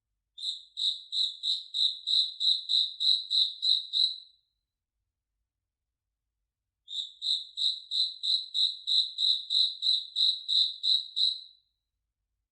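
A cricket chirping: two runs of about a dozen evenly spaced, high-pitched chirps, about three a second, each run lasting some four seconds, with a silent gap of about two and a half seconds between them.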